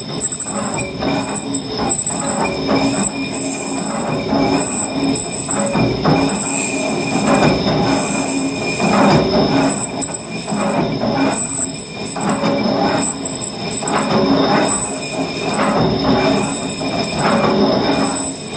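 Lathe cutting tool turning the surface of a cable excavator's steel hoist drum as the drum is spun by the hoist drive, truing out the drum's uneven wear. Steady high-pitched ringing tones from the cut ride over the continuous clatter of the machine's gearing.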